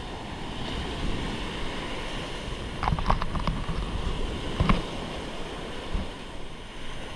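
Small sea waves breaking and washing up a sandy beach, with wind buffeting the microphone. A few short knocks come about three seconds in and again near the five-second mark.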